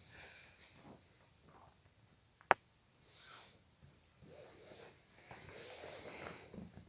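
A person snoring: noisy swelling breaths, the longest in the last couple of seconds, over a steady high chirring of insects, with one sharp click about two and a half seconds in.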